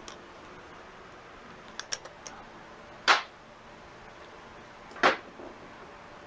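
Metal hand tools being handled on a workbench: a few light clicks, then two short, sharp clattering knocks about two seconds apart.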